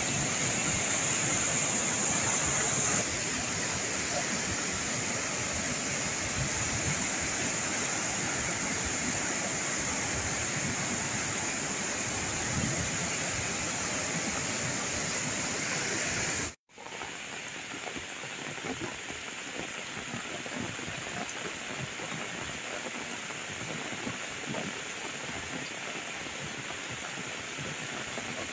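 Muddy floodwater rushing steadily down a hill-stream cascade swollen by monsoon runoff. The rush cuts out for an instant about two-thirds of the way through, then carries on a little quieter.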